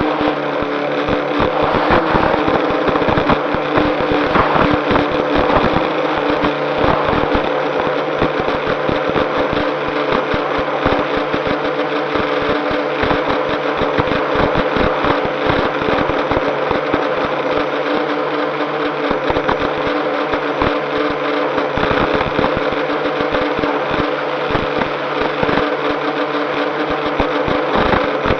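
Drone's electric motors and propellers running with a steady multi-tone whir during a descent with the throttle cut to zero, with wind buffeting the microphone in dense low thumps.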